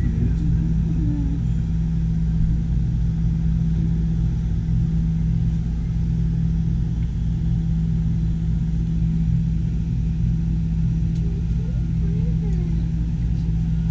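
A steady low mechanical hum with a strong low tone, unchanging throughout, with faint voices in the background near the end.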